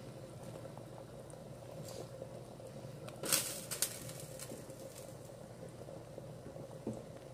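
Pot of chicken broth simmering with a steady low bubbling. A short clatter a little over three seconds in, and a light tick near the end.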